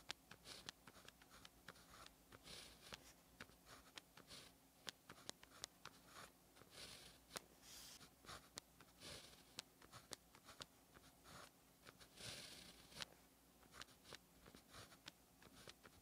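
Fine-tipped pen writing Chinese characters on paper, stroke by stroke. Short, quiet scratchy strokes come in irregular groups, with sharp little taps as the tip touches down and lifts, and brief pauses between characters.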